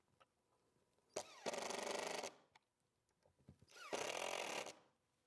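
Cordless drill-driver driving hinge screws into a cabinet, in two runs of about a second each, the motor's pitch rising as each one starts.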